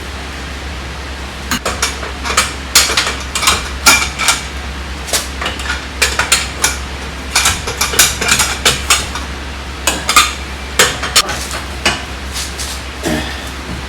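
Metal tools and lug nuts clinking and knocking against each other as a car wheel is worked on, in irregular sharp strikes about two or three a second, over a steady low hum.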